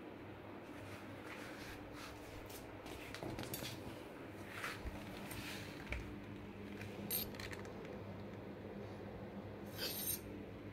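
Faint scuffs, rubs and small clicks from a kitten playing on a tiled floor and a phone being handled close by, with a steady low hum underneath. The largest rustle comes near the end.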